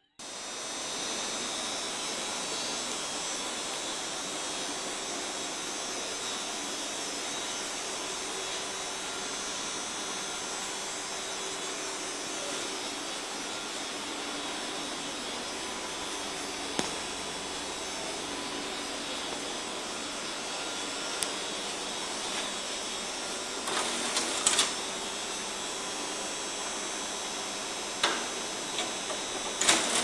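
COPE portable dehumidifier running: a steady, even fan-and-machine noise with faint constant tones through it. A few short knocks and clicks come later, the last near the end as its air filter is handled.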